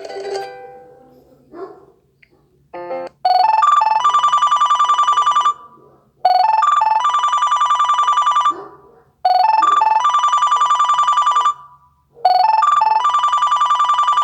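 Smartphone loudspeaker playing a classic LG ringtone: a few quick electronic notes, then a fast warbling trill. The phrase repeats four times, about every three seconds. In the first second the plucked notes of the previous ringtone fade out.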